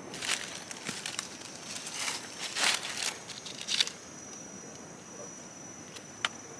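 Dry fallen leaves crackling and rustling for about four seconds as a hand digs a wild mushroom out of the leaf litter. Then a steady high insect buzz carries on, with one sharp click near the end.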